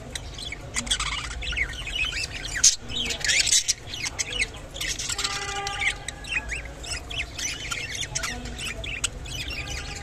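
Budgerigars chattering: a fast, continuous run of short chirps and squawks, with one held, steady note about five seconds in.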